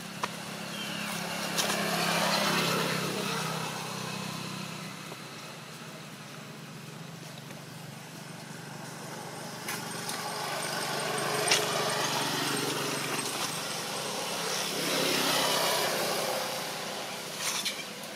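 Motor traffic: a steady engine hum, with passing vehicles swelling louder about two seconds in and again near the end, and a few sharp clicks.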